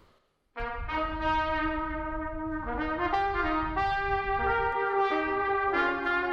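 Brass ensemble with trumpets playing slow held chords, coming in about half a second in after a brief hush and moving to a new chord every second or so.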